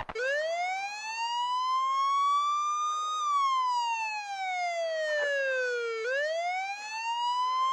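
Police siren in a slow wail: it rises over about three seconds, falls over about three, then rises again.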